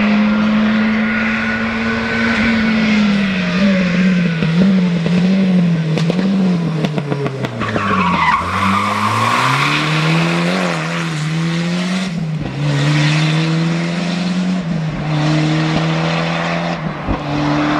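Volvo 240 Turbo rally car at full stage speed: the engine revs and drops with the throttle, then a quick run of exhaust pops and bangs as it lifts off and brakes for a corner about six seconds in. The tyres squeal as it slides through the bend, and it accelerates away, changing up through the gears.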